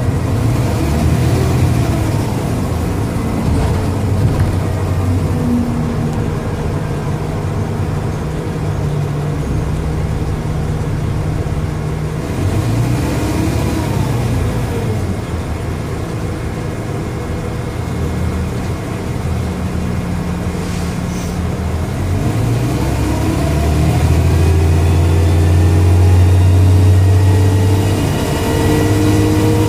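Dennis Trident bus diesel engine pulling through its Voith automatic gearbox. The pitch climbs and drops several times as it accelerates and changes gear, and a thin whine climbs near the end. It is a loud engine, its noise put down to a bad turbo.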